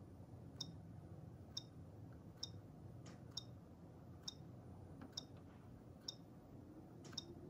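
Faint, short key-press clicks from the HP OfficeJet Pro 9015's touchscreen keypad, about one a second, as a password is typed two taps per letter. A low, steady room hum sits underneath.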